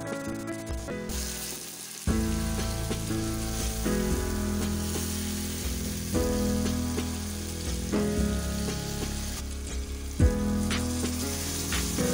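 Black chickpea masala sizzling as it fries in a pot while being stirred with a wooden spoon, with a sharp knock about ten seconds in. Background music plays over it.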